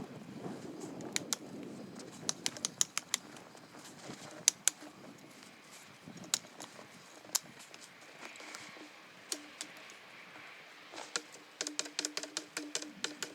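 Wood fire crackling: irregular sharp pops and snaps, thicker in bursts near the start and near the end, over a low steady hiss.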